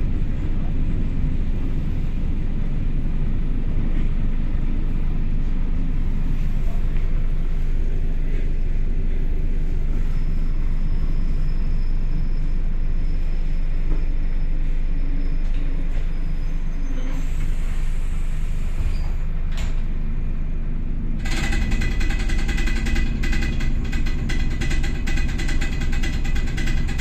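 ER2 electric train running on the rails with a steady low rumble; about 21 seconds in the sound turns abruptly louder and more rattly, with a fast run of clicks and a steady higher whine over it.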